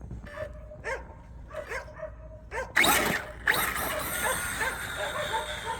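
A dog yipping and whining in short repeated cries. About three seconds in, a loud rushing noise starts, and a steady hiss then runs on under the cries.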